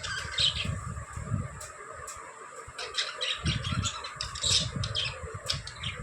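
Pet budgies (budgerigars) chirping and chattering in quick, short chirps, over a low rumbling noise.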